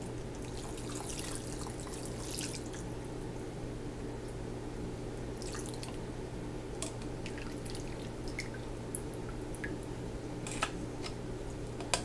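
Chicken broth poured through a mesh strainer and funnel into a glass mason jar: liquid splashing and dripping in short spells, with a few light clicks, over a steady low hum.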